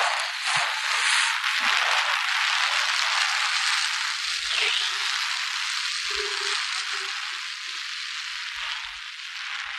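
Steady rushing hiss of air and road noise past the side of a moving Scania multi-axle coach, easing slightly near the end.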